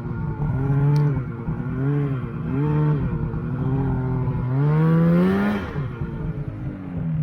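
Snowmobile engine running under a working throttle, its pitch rising and falling several times. A longer climb about four and a half seconds in drops back just before six seconds.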